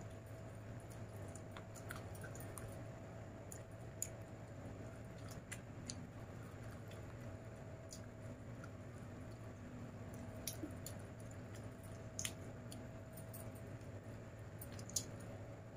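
Faint close-up eating sounds: chewing of chicken and rice, with soft wet squishes of fingers mixing food on a steel plate. Scattered short sharp clicks stand out, the loudest near the end, over a low steady hum.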